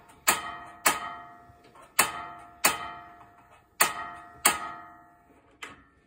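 Igniter of a Suburban RV propane stove burner clicking in pairs, three times, with a faint single click near the end. Each click rings briefly as the burner is tried again and again while the gas line purges old propane, so the burner does not light yet.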